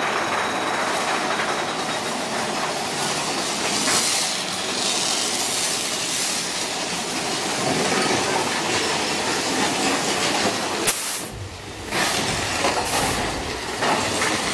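Big Thunder Mountain Railroad mine-train roller coaster rattling along its track as a steady clattering rumble. Several short bursts of hiss cut in, the strongest about eleven seconds in, followed by a brief dip and then a deeper rumble.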